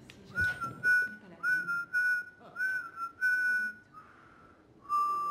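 A whistled tune: a run of short high notes, some sliding up into pitch, then a pause and one longer, slightly lower held note near the end.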